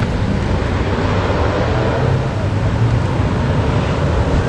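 Steady traffic noise on a busy street, with the low, even rumble of vehicle engines.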